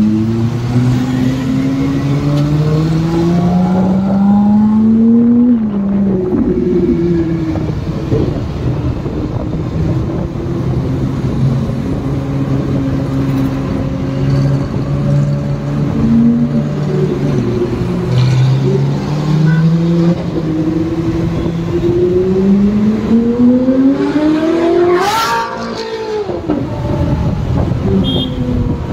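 Ferrari 458 V8 engines running loud in traffic, climbing in pitch under acceleration and dropping back at each gear change. About 25 seconds in, a car passes close by, its pitch rising sharply and then falling away.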